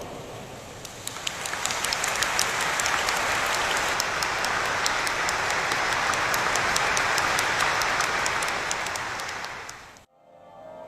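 A congregation applauding. The clapping builds over the first couple of seconds, holds steady, then fades and cuts off about ten seconds in, after which soft music begins.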